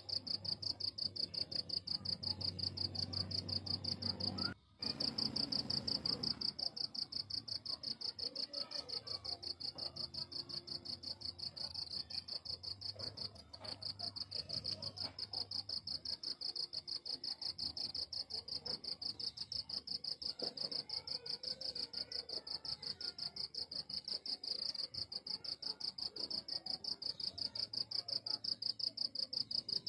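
Crickets chirping in a steady, high-pitched, rapid even pulse. The sound cuts out briefly about four and a half seconds in.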